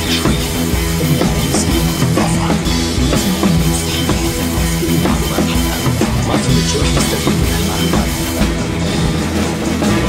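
Background score music with a drum-kit beat over held bass notes.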